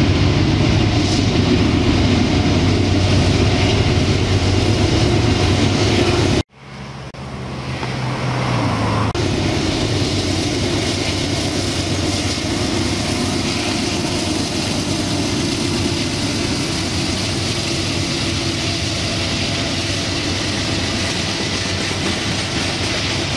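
Diesel freight locomotives passing close, their engines running with a steady low drone over the rumble of wheels on rail. The sound cuts out abruptly about six seconds in, then swells back up to a steady rumble as the units roll by.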